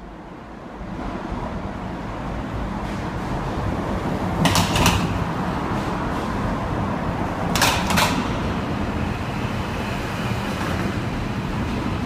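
Loud traffic rumble of vehicles passing through a road tunnel, swelling over the first second and then holding steady. Two short bursts of sharp clattering come about four and a half and eight seconds in.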